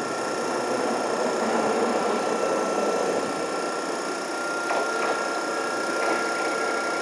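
Toden Arakawa Line 8800-series tram standing at a stop, its onboard equipment running with a steady mechanical whir and a steady high whine. A couple of short clicks come about five seconds in.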